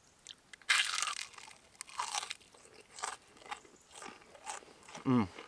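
Crunchy biting and chewing of a crispy homemade battered onion ring, starting with a loud crunch about a second in and going on in irregular crunches. A short voiced murmur comes near the end.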